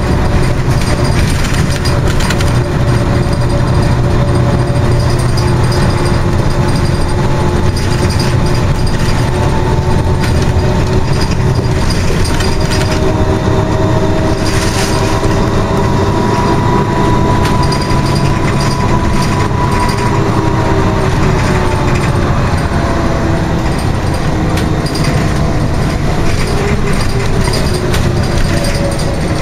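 Interior noise of a Scania OmniCity articulated bus on the move: a steady engine and road rumble, with a drivetrain whine that slowly rises and falls in pitch as the bus speeds up and slows. Scattered clicks and rattles from the bus body and fittings.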